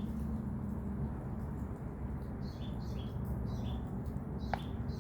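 Small birds chirping: short high chirps repeat every half second or so, with one sharp falling whistle about four and a half seconds in, over a steady low rumble.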